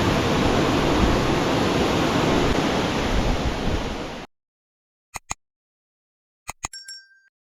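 Waterfall rushing, a steady roar of falling water that cuts off abruptly a little past four seconds in. Two pairs of sharp clicks follow in the silence, the second pair with a brief high ping.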